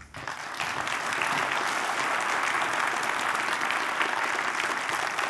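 Audience applauding: dense, steady clapping from a seated crowd that starts almost at once.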